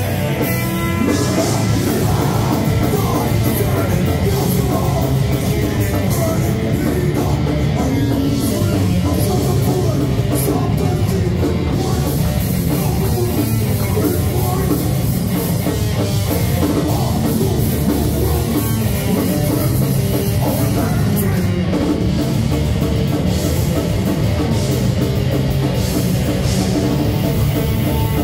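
Metal band playing live: distorted electric guitar, bass and a drum kit, with a vocalist singing into a microphone, loud and continuous.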